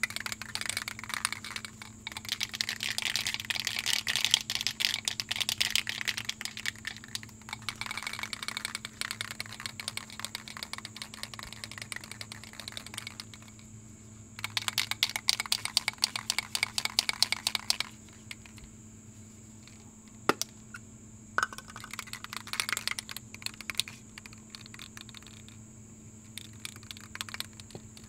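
A stiff brush scrubbing an Acura RSX brake caliper in bouts of fast scratchy strokes, cleaning the metal before it is painted; a long bout over the first dozen seconds, then shorter ones with pauses between, and a couple of single clicks.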